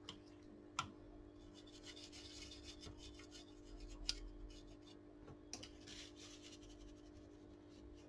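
Faint rubbing of a tissue wiped back and forth over a desktop motherboard, with a couple of light clicks, over a steady electrical hum.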